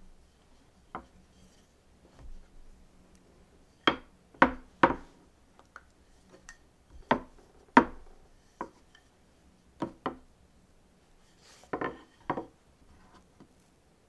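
Wooden rolling pin rolling out soft bread dough on an end-grain wooden cutting board, giving about a dozen short, sharp wooden knocks, the loudest in quick clusters about four and seven seconds in.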